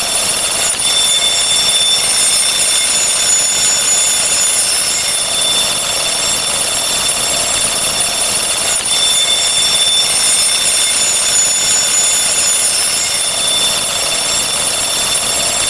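Dense, continuous wall of overlapping electronic ringing tones, like an alarm clock going off without pause. It is counting sound effects piled on top of one another at a very fast count.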